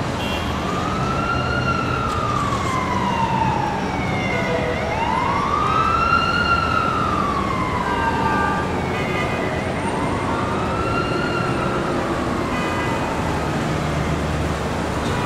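Emergency vehicle siren wailing, its pitch rising and falling slowly three times, over steady city traffic noise.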